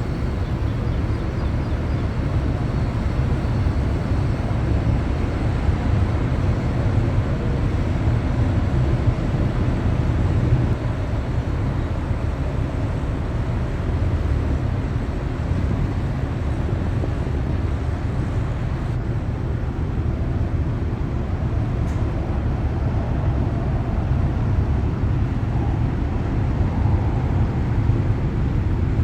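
Steady low rumble of a cargo ship's engine, an even deep drone with a light hiss above it that does not change.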